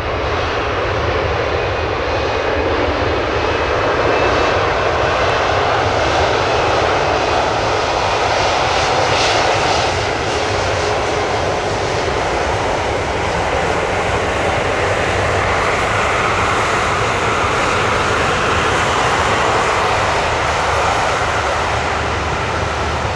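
Airbus A220-300's Pratt & Whitney PW1500G geared turbofan engines running at taxi power: a steady, loud rush of engine noise that swells a little over the first few seconds and then holds.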